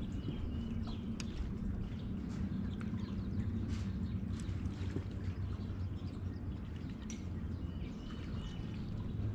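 Steady low hum of a bow-mounted electric trolling motor holding the bass boat along the bank, with small birds chirping now and then.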